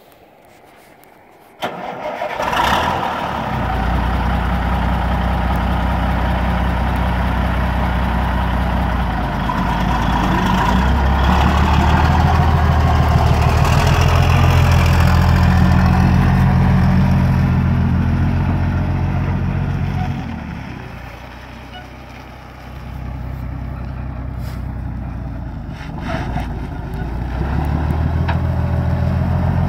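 1988 Freightliner FLC120 dump truck's diesel engine starting about a second and a half in, then running steadily. Its speed rises for several seconds mid-way and falls back, and it picks up again near the end as the truck pulls away.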